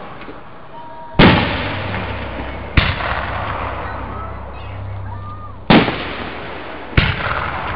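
Aerial fireworks shells bursting overhead: four loud bangs a second or more apart, each trailing off in a long echoing rumble.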